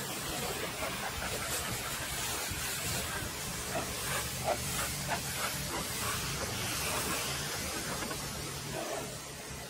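Pressure washer's high-pressure water jet spraying against a car's body panels and wheel: a steady hiss of spray with a steady low hum underneath.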